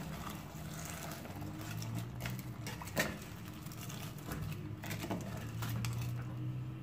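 Wooden spoon stirring and scraping a thick semolina-and-milk halwa mixture in a stainless-steel pot, with irregular soft scrapes and knocks and one sharper knock about three seconds in. A low steady hum runs underneath.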